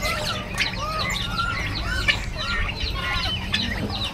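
Many caged birds calling over one another: a dense run of short overlapping chirps, over a low background rumble.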